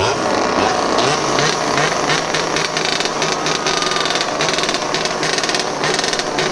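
Small petrol engines, fans' handheld engine noisemakers, revved hard in rapid, choppy bursts.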